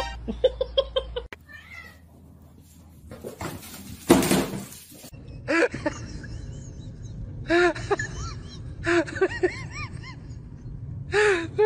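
Cats meowing and yowling in short groups of arching, rising-and-falling calls, a group every second or two, with a brief call near the start. A loud rushing noise about four seconds in.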